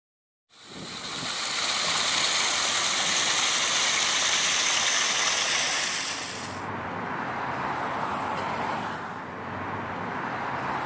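Steady rushing outdoor ambience that fades in after a brief silence; about six and a half seconds in its high hiss drops away, leaving a softer, duller rush.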